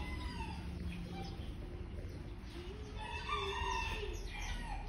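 Domestic fowl calling: one long crow-like call with a wavering pitch starting about two and a half seconds in, with fainter calls near the start, over a steady low hum.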